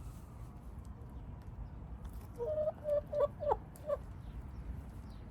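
Wyandotte hens clucking: a short run of about five quick, low clucks near the middle, over a steady low background rumble.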